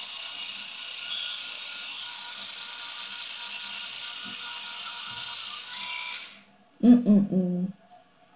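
Electric toothbrush buzzing steadily against the teeth, switched off about six seconds in. A short mumbled vocal sound follows near the end.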